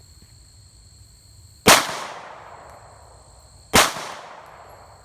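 Two pistol shots about two seconds apart, each trailing off in a long echo. They come from a Glock 23 firing 9mm through a Lone Wolf .40-to-9mm conversion barrel.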